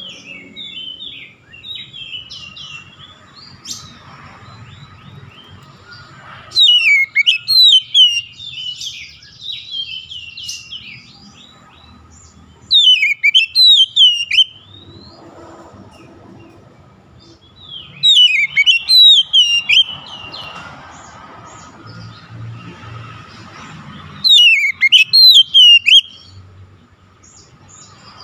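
Oriental magpie-robin (kacer) singing: four loud bursts of rapid, whistled notes that swoop up and down, about every six seconds, with softer chattering notes in between.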